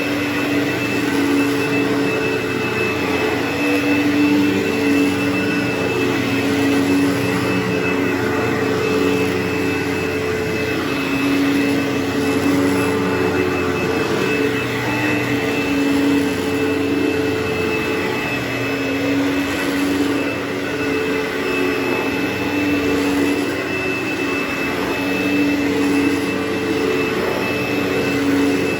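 Vacuum cleaner motor running steadily on carpet, a whining hum with a wavering level as the vacuum is worked back and forth.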